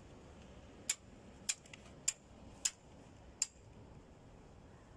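Five light, sharp metal-on-metal taps, one about every half to three-quarters of a second: a hand hammer tapping on steel at a tower crane's hoist winch gearbox during a gear replacement.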